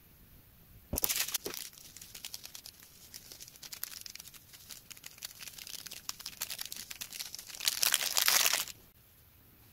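Fingertips pressing and poking into slime topped with green latex-powder crumbs, giving a dense crackle of many fine clicks and crunches. It starts about a second in with a loud burst, runs on more softly, swells again near the end, then stops abruptly.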